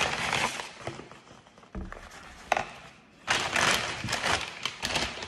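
Paper takeout bag rustling and crinkling as food is taken out of it, in two loud spells with a couple of light knocks between.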